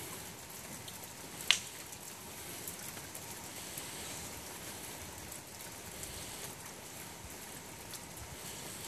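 Wood campfire crackling over a soft steady hiss, with one sharp loud pop about a second and a half in and a few fainter ticks.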